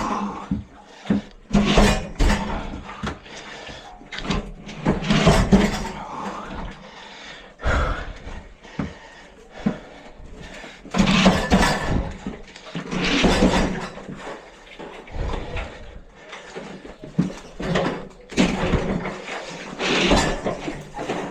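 Repeated heavy bumps, thumps and scraping as an old 40-gallon tank water heater, still partly full of water and sediment, is wrestled and dragged out by hand, coming in uneven bursts every second or two.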